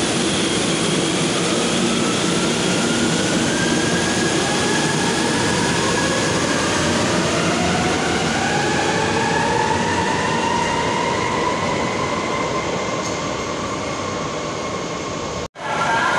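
A vehicle running with a loud steady rumble and a whine that rises in pitch over several seconds as it speeds up. The sound drops out for an instant near the end.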